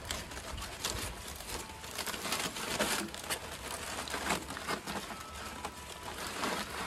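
Aluminium tin foil crinkling in quick, irregular crackles as it is peeled open and pulled off food on a grill.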